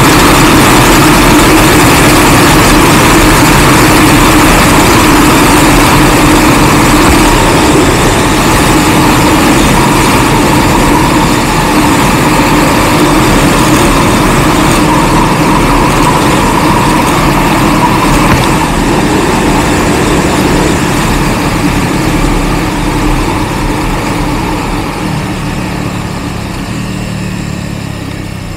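CFMOTO 450SRS parallel-twin engine running at speed under loud wind rush over the microphone. Both fade steadily over the last ten seconds as the motorcycle slows from highway speed.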